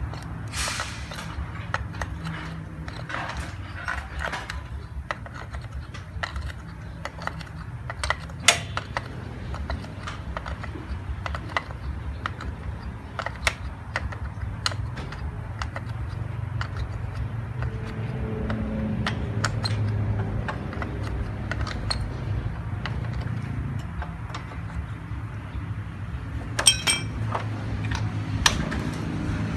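Scattered light metallic clicks and clinks as a cover is handled and fitted onto a small motorcycle engine, with a few sharper clicks about 8 seconds in and near the end, over a steady low background rumble.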